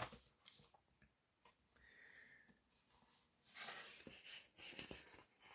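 Faint rustling of glossy magazine pages being handled and turned, in a few soft bursts about three and a half seconds in. Otherwise near silence.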